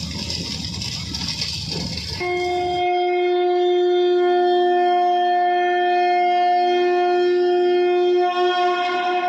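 A wind instrument in the dance music track holds one long, steady, horn-like note for about seven seconds, after a couple of seconds of hissing noise.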